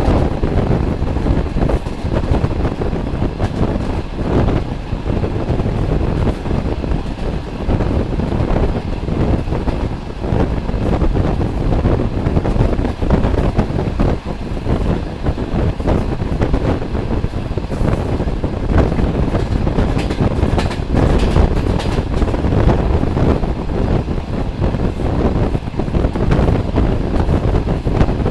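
Passenger train running at speed, heard from an open carriage window: a steady rumble of wheels on rails mixed with rushing wind buffeting the microphone.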